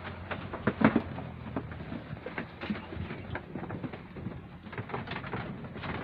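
Goats feeding on sweet potato vines: scattered rustling of leaves and stems with irregular short clicks and knocks.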